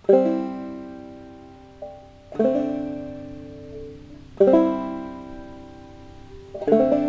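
Five-string banjo playing four single strummed chords about two seconds apart, each left to ring and fade, alternating between a C chord and a D7 chord. There is a faint extra pluck just before the second chord, as the hand changes shape.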